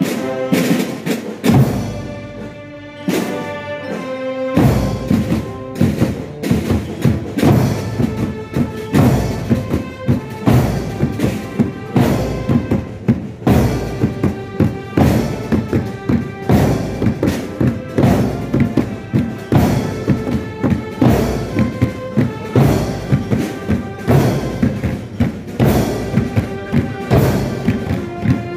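Marching band playing a march: a pitched melody at first, then from about four and a half seconds in the bass drums join with a steady, regular beat under the melody.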